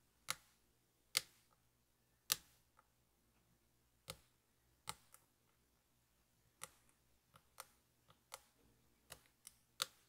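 Sharp, faint clicks of a lock pick working the pin stacks of an ASSA V10 lock. There are about fifteen of them at uneven intervals, some louder than others.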